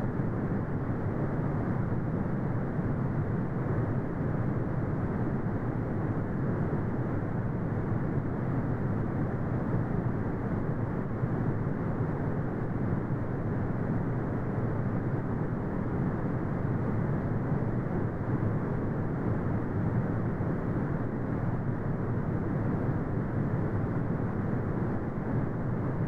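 Steady brown noise: a continuous deep rumbling hiss weighted toward the low end and cut off above about 2 kHz, with no changes.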